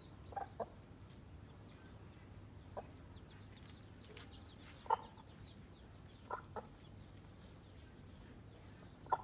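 Domestic mother hen clucking in short, spaced-out calls, some in quick pairs, the loudest about halfway through. These are her warning clucks at a cobra reared up close to her chicks.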